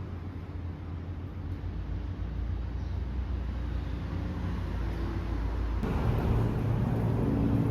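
Low, steady rumble of street traffic that grows fuller and a little louder about six seconds in.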